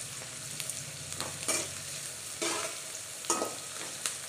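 A perforated steel spatula scrapes and stirs chopped onions and green chillies in a metal kadai, about once a second, over the steady sizzle of frying in oil.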